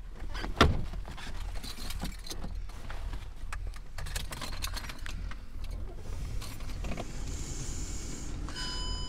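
Car cabin: a door shuts with a thud a little over half a second in, then the engine runs with a steady low rumble under small clicks and rustles of people settling in their seats. Near the end a short electronic tone sounds for about a second.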